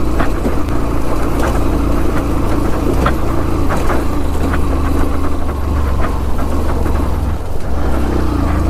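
Yamaha FZS V3 motorcycle's single-cylinder engine running steadily under load in second gear, pulling up a steep gravel climb, with scattered sharp ticks from loose stones under the tyres.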